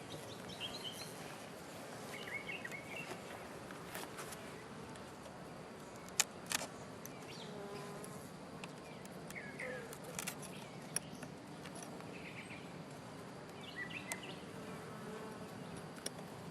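Honey bees buzzing steadily around an opened hive, with a few sharp clicks and knocks, the loudest about six seconds in, and some short high chirps.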